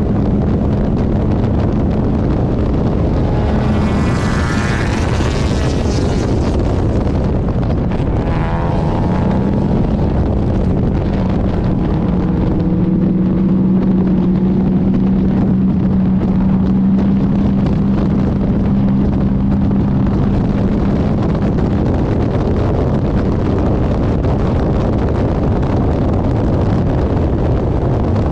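GM-engined Lemons race car running hard at a steady pace, with wind noise on the microphone. The engine note dips briefly about eight seconds in, then settles back. A higher whining note rises and fades about four to six seconds in.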